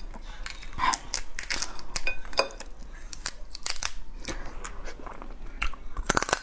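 Crab shell cracking and crunching as a crab is broken apart by hand and bitten: quick, irregular snaps.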